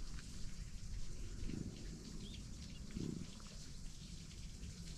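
Faint open-air ambience with a low wind rumble, two short low animal calls about a second and a half apart, and a few faint high chirps.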